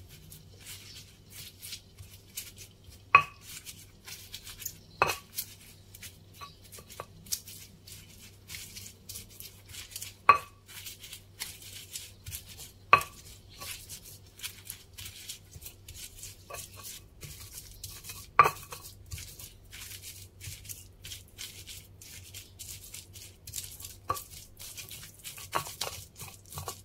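Stone pestle pounding and grinding fried chillies, shallots and garlic in a stone mortar (ulekan and cobek): a steady run of soft crushing, scraping taps, with about five sharper stone-on-stone clacks that ring briefly.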